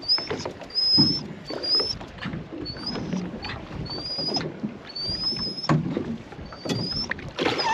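A dog whining in a string of short, high, rising squeals, about one every half second to a second, with scattered knocks underneath.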